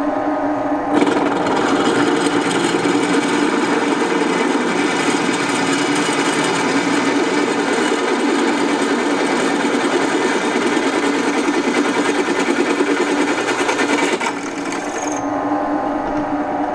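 Benchtop drill press running with a steady motor hum while a 10 mm twist drill bores through a 5–6 mm metal plate held in a vise. A dense, grinding cutting noise starts about a second in and stops about two seconds before the end, when the bit is withdrawn and only the motor hum remains.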